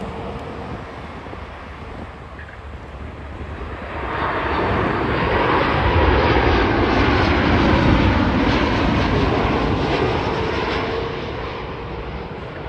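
Jet airliner's engines passing by: a broad rushing roar swells about four seconds in, is loudest in the middle, then slowly fades.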